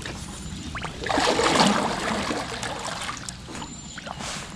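Water splashing and trickling, loudest about a second in.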